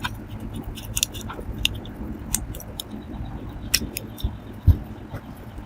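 Irregular sharp clicks and light metallic ticks of hand work on small metal parts, over a low rumble, with one heavier knock a little under five seconds in.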